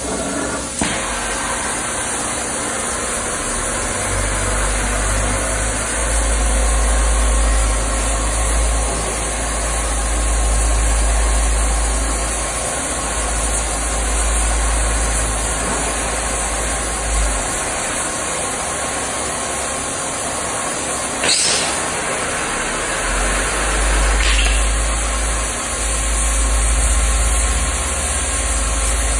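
Steel beam coping machine cutting a steel channel with its torch: a steady hiss over a low machine rumble that fades out for a few seconds past the middle and then returns. Two brief sweeping noises come about two-thirds of the way through and again about three seconds later.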